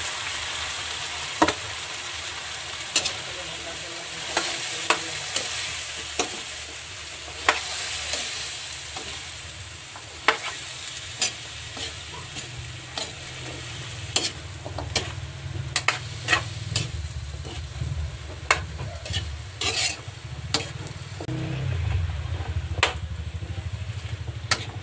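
Cubed squash sautéing in hot oil in a wok, sizzling steadily while a metal spatula stirs it, with frequent sharp clinks of the spatula against the pan.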